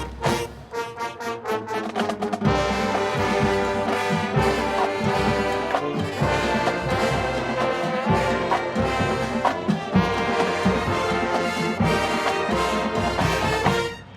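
Marching band playing: brass (trumpets and trombones) over drum-line hits, with sharp percussion strokes first and the full ensemble coming in about two and a half seconds in. The music stops abruptly near the end.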